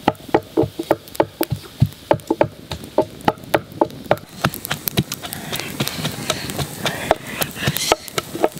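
Wooden pestle pounding in a wooden mortar, a steady run of knocks about three a second, with light crackling from a wood fire.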